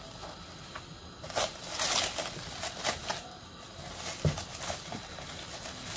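Plastic cling film crinkling and crackling in irregular bursts as it is peeled off a bowl of risen dough.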